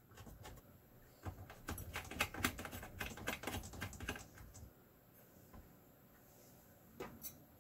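A run of light, rapid clicks and ticks as the Hyper 212 EVO cooler's metal mounting standoffs are threaded by hand onto the backplate screws. The clicks are densest for about three seconds, starting a little after a second in, then thin out to faint handling with a couple of clicks near the end.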